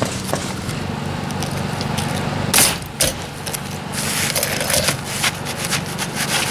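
Pneumatic roofing nailer firing twice, about half a second apart, near the middle, over a steady low engine hum. Asphalt shingles scrape and rustle as they are handled in between.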